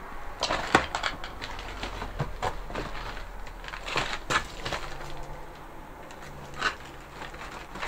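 Footsteps on rubble, broken tiles and dry leaves, giving irregular crunches and sharp clicks.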